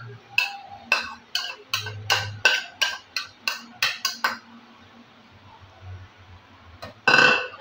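A metal spoon knocking and scraping crayfish out of a ceramic bowl: about fifteen sharp ringing clinks over the first four seconds. Near the end, one louder clatter of metal on the steel pot.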